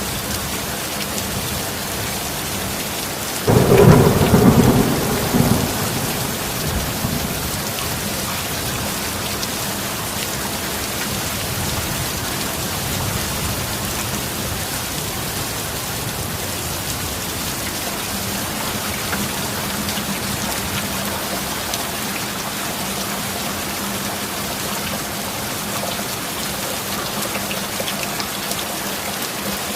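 Heavy rain falling steadily, with a sudden thunderclap a few seconds in that rumbles and fades over about three seconds.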